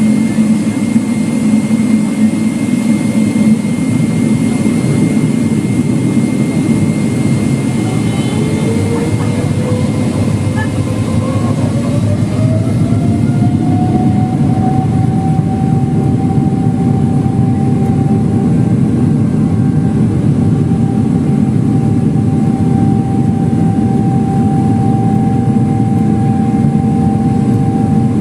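Boeing 777-300ER's GE90-115B turbofan engines heard from inside the cabin over a loud, steady rumble. About eight seconds in, a whine rises in pitch as the engines spool up to takeoff thrust, then holds steady at the higher pitch from about fourteen seconds as the takeoff roll begins.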